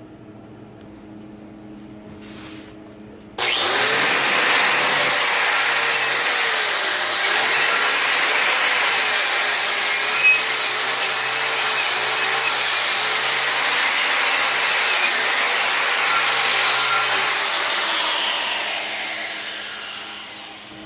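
Power tool spinning a wire wheel to strip paint from the metal. It starts abruptly about three seconds in, its whine dips and recovers as it runs, and it winds down over the last few seconds.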